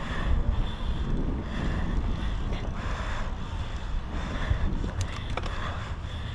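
Cyclocross bike ridden hard on a dirt course: wind rushing over the bike-mounted camera's microphone and tyres rolling over the ground, with the rider's hard breathing coming in puffs about once a second. Two sharp clicks about five seconds in.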